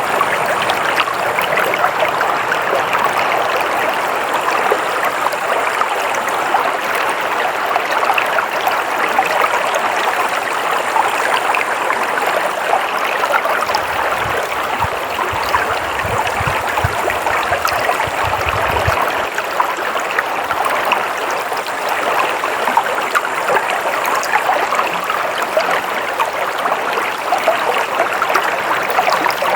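Stream water flowing with a steady rushing babble. A faint low rumble comes in for a few seconds midway.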